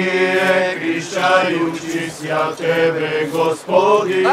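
Orthodox Christian liturgical chanting for the blessing of the water, sung in several phrases over a steady low held tone.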